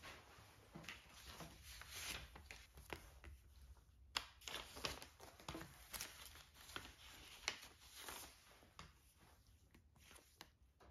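Paper envelopes handled by hand and slid across a wooden tabletop: quiet rustling of paper with light taps and clicks, the sharpest about four seconds in and again near seven and a half.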